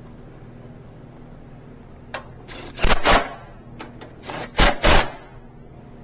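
A few short, harsh scraping and rubbing noises of parts being handled and shifted against each other, loudest about three seconds in and again near five seconds, over a low steady hum.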